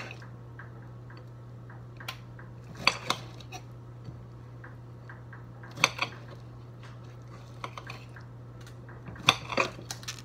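Kitchen knife cutting a tomato on a ceramic plate: the blade strikes the plate in several sharp, irregular clinks over a steady low hum.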